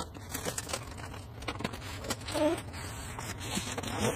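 Cardboard scraping and rustling as a retail box is slid out of a cardboard shipping carton, with scattered knocks and scrapes of handling; the densest scraping comes a little past the middle, with a couple of faint squeaks of cardboard.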